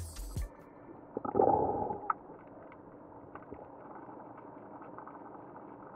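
Underwater sound picked up by the camera: a loud gurgling rush of water about a second and a half in, ending with a sharp click, then a faint steady hiss with scattered small clicks.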